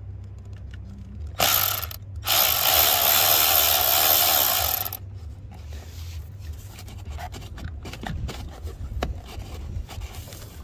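Milwaukee cordless power ratchet driving a 10 mm coil-pack bolt, loosening it on a Hemi V8. It gives a short burst about a second and a half in, then runs steadily for nearly three seconds. Small clicks and knocks of the tool being handled follow.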